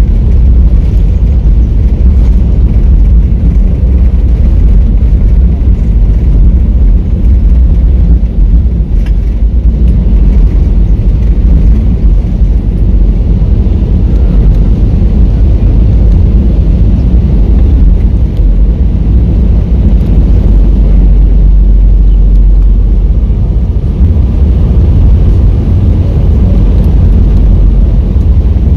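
Loud, steady noise of a jet airliner moving fast along the runway, heard from inside the cabin: engine noise and wheel rumble, heaviest in the deep low end.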